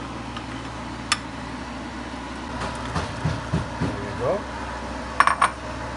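Kitchen sounds over a steady low hum: a single sharp click about a second in, then a quick clatter of two or three metal clinks near the end as a spoon and bowl are handled over the wok, with some low murmured voice in between.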